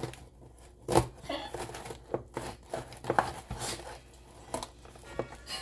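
A parcel's packaging being torn and crinkled open by hand in irregular rustles and scrapes, with one sharp knock about a second in.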